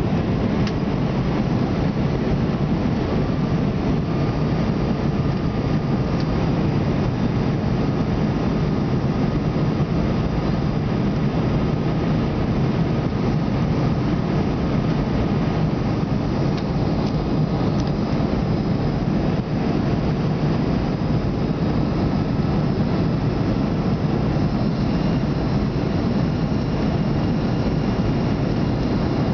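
Steady drone of an airliner's engines and rushing air heard inside the passenger cabin on the descent for landing, with a few faint steady whines above it.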